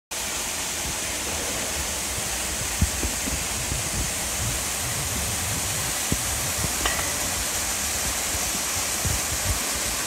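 Steady rush of a waterfall pouring into a rock pool, with a few brief low thumps.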